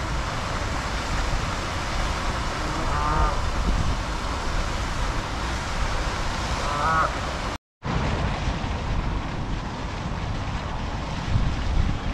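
Canada geese honking twice, each a short call, about three seconds in and again about seven seconds in, over a steady rush of wind and water. The sound cuts out for an instant shortly after the second call.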